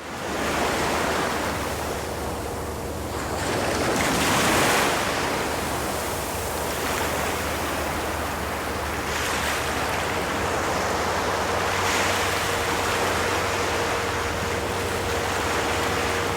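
Ocean surf on a beach: a constant wash of waves with swells as they break, the biggest about four to five seconds in and more around nine and twelve seconds in. A faint steady hum runs underneath.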